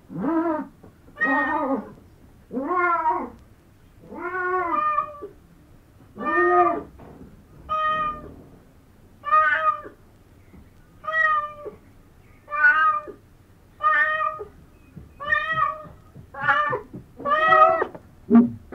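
Siamese cat meowing over and over, about fourteen meows, roughly one every second and a half. The first few are lower and arched in pitch, and the later ones are higher and flatter.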